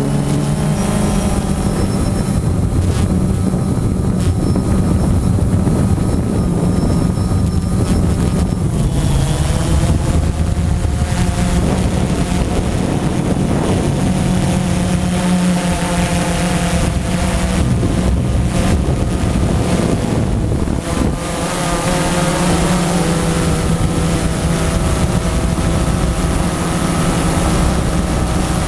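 Multirotor drone's electric motors and propellers buzzing steadily, heard close up from the drone itself, their pitch shifting a little now and then as it manoeuvres, with wind rushing over the microphone.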